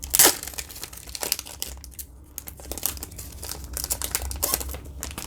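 A football trading card pack being torn open by hand, its wrapper crinkling and crackling in irregular bursts, with the sharpest tear about a quarter second in.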